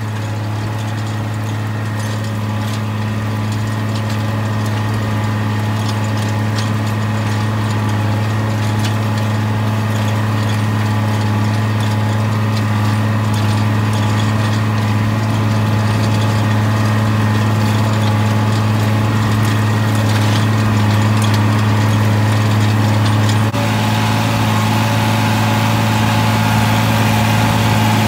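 Tractor engine running steadily under load while pulling a field cultivator through worked soil, a strong constant low hum. Near the end it briefly dips and its tone shifts slightly.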